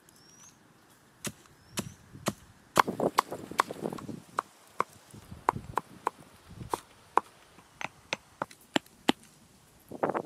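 Repeated chopping blows of a blade into wood: about twenty sharp knocks at an uneven pace of roughly two a second, starting about a second in.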